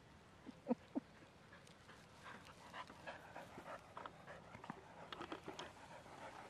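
A dog panting in quick breaths, starting about two seconds in and getting louder as it runs up close after fetching a ball. Two short high-pitched sounds come about a second in.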